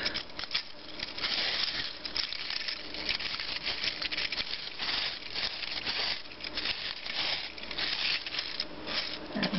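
Wind-up robot toy's clockwork spring being wound with its key: a fast, uneven stream of small ratchet clicks.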